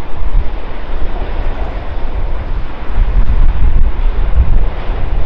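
Jet engines of an arriving Airbus A350 airliner, its Rolls-Royce Trent XWB turbofans, giving a steady, loud, deep rumble with a rushing hiss as it comes in to land.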